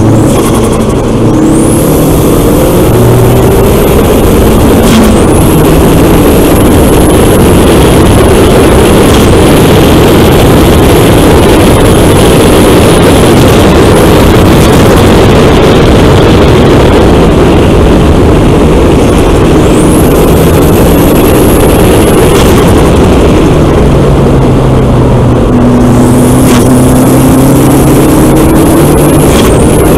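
Volkswagen Golf GTI Mk4's 1.8-litre turbocharged four-cylinder engine under hard acceleration, its pitch climbing through the revs, under a loud, steady rush of wind. A thin high whistle rises in and drops out again several times.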